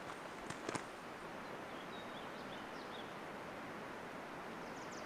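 A few footsteps on a rocky trail in the first second, then a faint steady outdoor hiss with a few faint, high bird chirps around the middle and again near the end.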